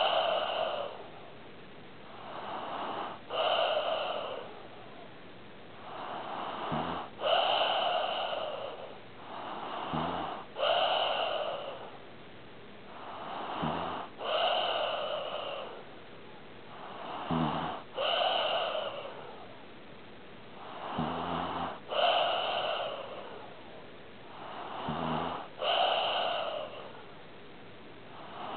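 A sleeping pet snoring in a steady rhythm, about one breath every three and a half seconds. Each breath is a rising rush of air, a brief low snort, then a louder rush of air.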